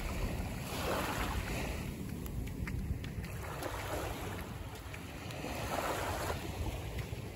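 Small waves lapping and washing up over a sandy shore, each wash swelling and fading every two or three seconds, with some wind buffeting the microphone.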